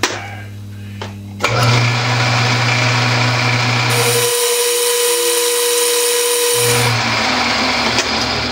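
Metal lathe running, then about a second and a half in a round-nose tool bites into a very hard steel hex bar and a loud, harsh cutting noise sets in and holds steady while the chamfer is deepened. A steady ringing tone rises from the cut for a couple of seconds in the middle: the tool chattering a bit.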